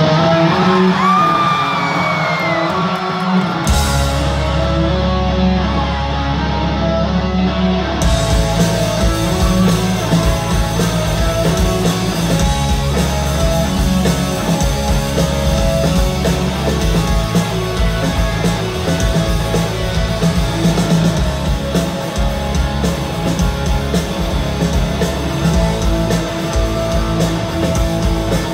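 Live rock band playing loud, distorted electric guitars, heard from within the crowd. A held low note starts about four seconds in, and the full band with drums comes in at about eight seconds.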